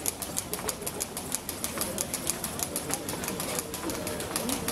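Footsteps of a slow-walking procession on cobblestones: a quick, slightly irregular run of sharp clicks, about six or seven a second, over a low murmur of voices.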